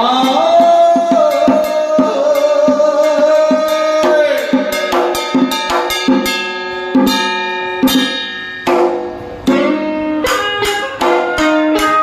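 Traditional Vietnamese funeral ritual music: a held, wavering melody over plucked strings and drum beats.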